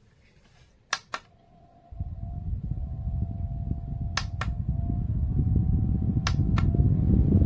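Small USB-rechargeable desk fan: a double click of its button, then the fan starts about two seconds in and its air rushes over the microphone with a faint steady motor whine. Two more double clicks of the button step it up, and the airflow grows louder.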